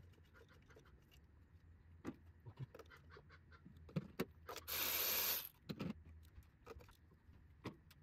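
Light clicks and clinks of hand tools and parts being handled, with one short hiss lasting about a second midway through.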